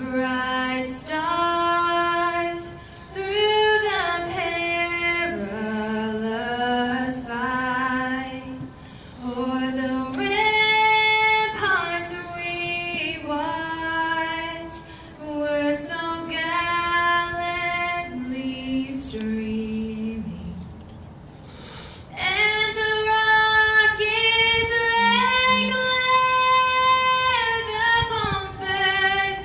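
A young girl singing solo into a microphone with no accompaniment, holding long notes with slides between them. She pauses briefly about two-thirds of the way through, then goes on singing.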